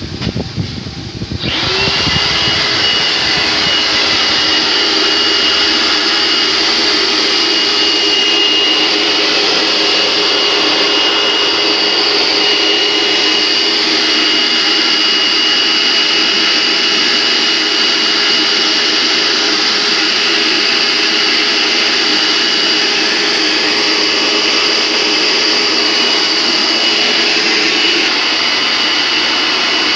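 An electric motor starts abruptly about a second and a half in and runs steadily, with a rushing noise, a thin high whine and a lower hum that fades out near the end.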